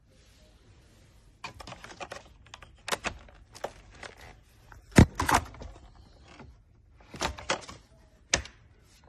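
A series of sharp clicks and knocks, irregularly spaced, the loudest about five seconds in.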